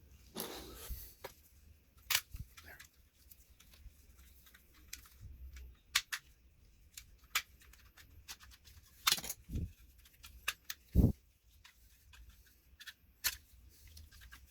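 Irregular sharp plastic clicks, snaps and short scrapes from a plastic remote control's case being pried apart and handled, with one louder knock about eleven seconds in.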